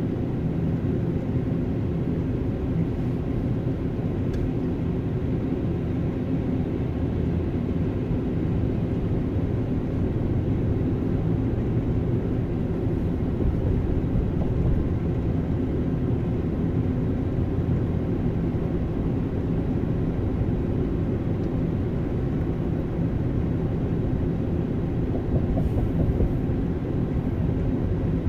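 Steady low road and engine rumble of a car cruising on a freeway, heard from inside the cabin.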